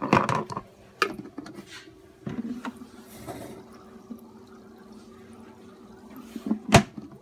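Water churning and splashing inside a plastic keep-alive bait tank as its recirculating inflow stirs the surface, with a steady low hum under it. Plastic lid and handling knocks at the start and a sharp knock near the end, which is the loudest sound.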